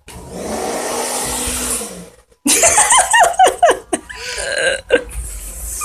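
Hand-held hair dryer running with a steady rush of air for about two seconds, blowing out talcum powder, then cut off abruptly. Right after it comes a burst of high shrieking laughter.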